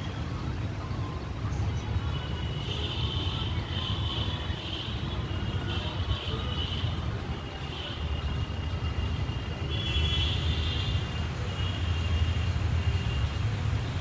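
Outdoor ambience: a steady low rumble, like distant road traffic, with faint high chirping coming and going above it.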